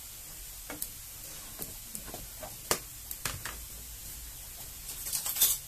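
Light knocks and clicks of a wooden spatula and kitchen containers being handled at a gas stove and wok, the loudest about halfway through, over a steady faint hiss. Near the end comes a short cluster of crackly rustling.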